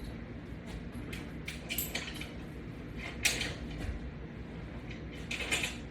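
Metal carabiner and clip hardware clinking and rattling as a resistance band is hooked up to a wall-mounted bar: a cluster of short rattles about a second and a half in, a sharper clack just past three seconds, and another rattle near the end.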